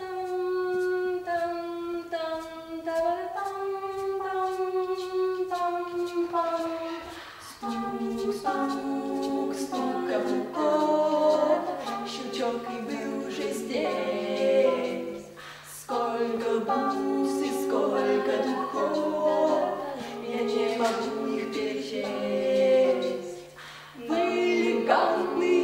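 Unaccompanied vocal group singing a cappella with no words. A single held voice line comes first, then several voices join in harmony about seven and a half seconds in, with light clicks scattered throughout.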